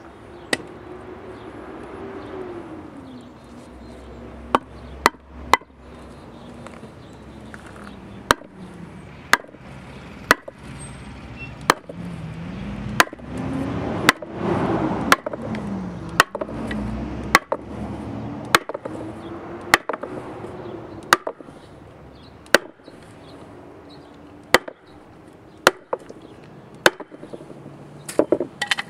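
Heavy sledgehammer striking a 2x4 board laid on a Sea-Doo jet pump wear ring, sharp knocks about once a second with a quick flurry of blows near the end, driving the ring down into the pump housing until it seats.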